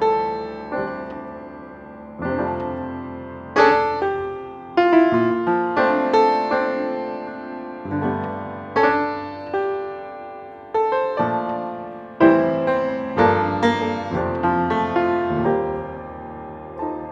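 Solo piano music at a slow pace: notes and chords struck roughly once a second and left to ring out and fade.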